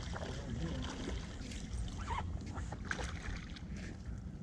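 Wind buffeting the microphone over water lapping against a small fishing boat, with a few light knocks about two and three seconds in.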